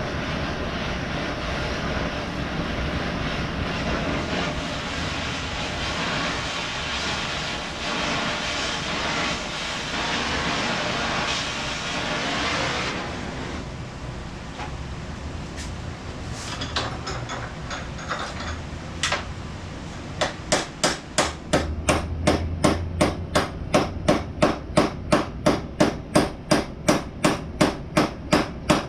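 A power tool runs steadily for the first dozen or so seconds, then after a few scattered clicks a hammer strikes metal in a steady rhythm of about two blows a second, peening the end of a hinge pin to mushroom it so the pin is locked in for good.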